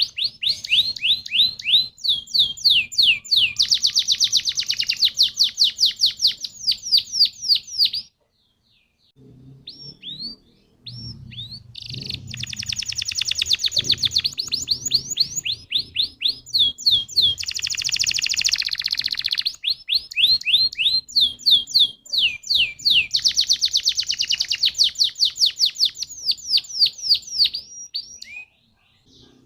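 Domestic canary singing long rolling trills of rapid, repeated downward-sweeping notes. The song breaks off into a brief silence about eight seconds in, picks up softly, and is in full flow again a few seconds later.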